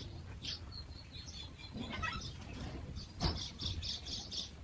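Small birds chirping in short, high, repeated notes, with a quick run of chirps in the second half and a single brief thud just before it.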